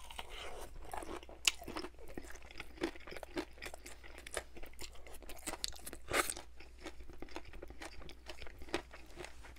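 Chewing a breaded fried chicken nugget dipped in honey mustard, close to the microphone: a steady run of crunches, with sharper crunches about one and a half seconds in and again about six seconds in.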